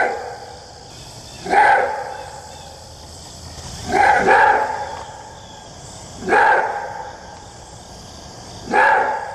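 Maned wolf giving its roar-bark: a short, hoarse bark repeated about every two and a half seconds, five times, the middle one doubled. A steady high hiss runs underneath.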